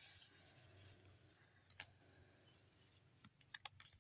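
Near silence with a few faint clicks and rubs of trading cards being flipped through in a gloved hand: one click a little under two seconds in, then a quick cluster near the end.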